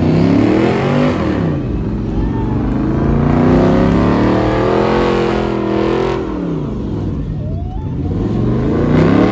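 Supercar engine revving with a loud exhaust, its pitch climbing and dropping three times. The middle rev is held near the top for a couple of seconds before falling away.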